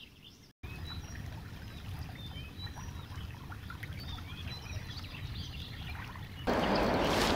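Songbirds chirping faintly over a low background rumble. About six and a half seconds in, a louder steady rush of river water takes over.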